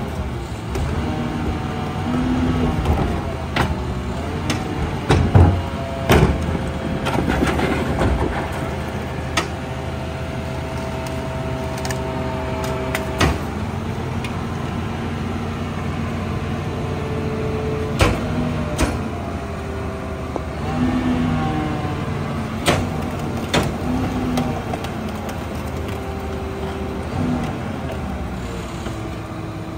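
New Way rear loader garbage truck running while its hydraulic packer cycles to compact a load. The engine and hydraulics hold steady tones that step up and down in pitch as the packer moves, broken by several sharp clanks and bangs from the cart being tipped and the blade working.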